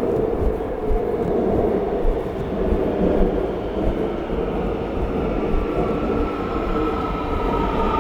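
Seoul subway train running: a steady rumble of the moving car, with a motor whine rising in pitch near the end.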